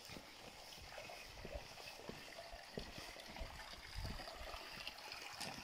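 Faint trickle of spring water dribbling in a thin stream from holes in a stone basin and splashing into the channel below.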